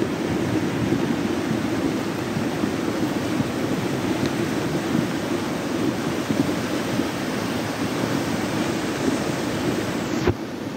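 Muddy floodwater rushing down a rocky gully in a steady, loud rush: a flash flood running after heavy rain. Near the end the hissing top of the sound drops away abruptly.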